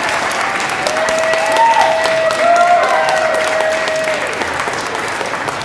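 Audience applauding, many hands clapping densely, with voices calling out over it for a few seconds.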